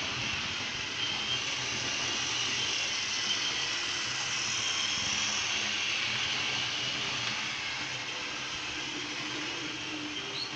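Model train running on the layout track: a steady whirring from the model diesel locomotive's electric motor and its wheels on the rails.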